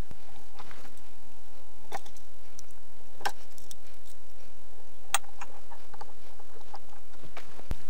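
A few light clicks and taps of a screwdriver and pliers against the metal parts of a laser engraver frame during assembly, over a faint steady hum.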